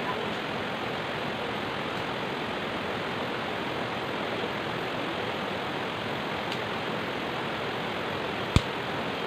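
Shallow rocky stream rushing steadily over stones, with a single sharp click near the end.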